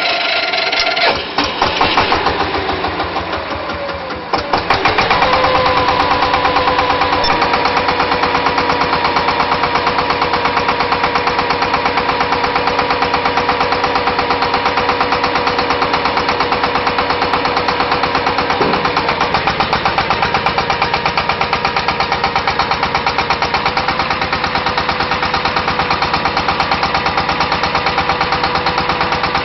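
Water-well drilling rig's engine revving up, then about four seconds in settling abruptly into steady, loud running with a fast, even pulsing beat.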